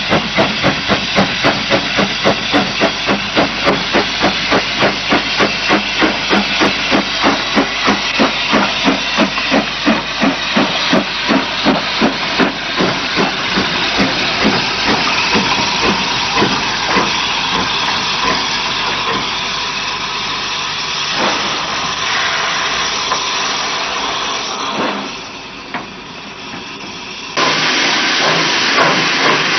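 Small steam tank locomotive working hard, its exhaust chuffing evenly at about three beats a second, the beats then blurring into a steady hiss and rumble as it passes close by. Near the end the sound jumps suddenly to a louder, steady hissing run heard from the locomotive's footplate.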